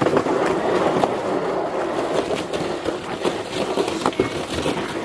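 A sled being pulled over icy packed snow: a continuous scraping and crunching from the runners, with its brake levers dragging a little.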